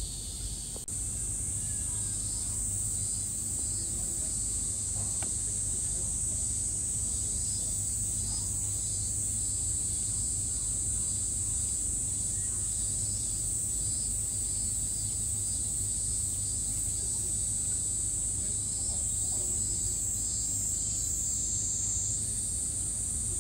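Steady, high-pitched drone of cicadas singing in chorus, with a low rumble underneath.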